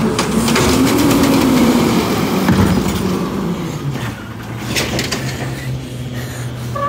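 Automated side-loader garbage truck working its hydraulic arm to dump a cart: the diesel engine's drone rises and falls in pitch over the first couple of seconds, with knocks and clatter from the arm and cart. A sharper knock comes about two and a half seconds in, and the engine then settles to a steady lower drone.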